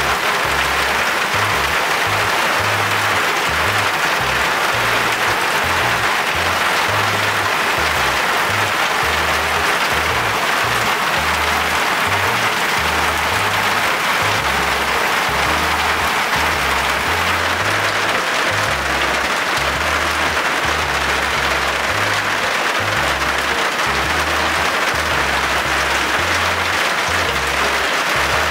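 Heavy rain falling steadily as a dense, even hiss, mixed with background music carrying a low bass line of changing notes.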